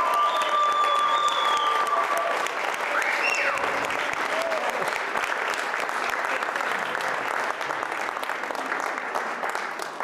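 Audience applauding, a dense patter of many hands clapping that slowly dies down, with a few held tones and short rising calls over it in the first three seconds.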